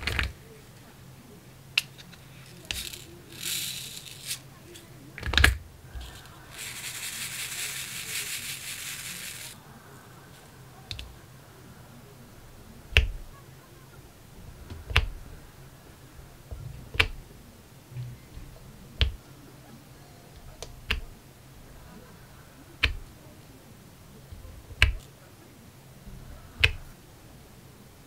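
Diamond painting: small plastic drill containers are handled with clicks and a knock, then loose resin drills rattle in a tray for about three seconds. After that the drill pen sets square resin drills onto the sticky canvas, one sharp click roughly every two seconds.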